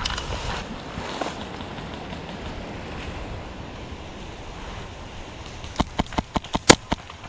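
Steady rustle and wind noise, then near the end a quick string of about seven sharp airsoft gun shots within about a second, one much louder than the others.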